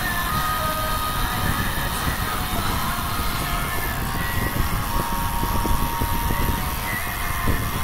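Wind buffeting the microphone of a camera on a moving bicycle: a steady, gusty low rumble with a haze of road noise.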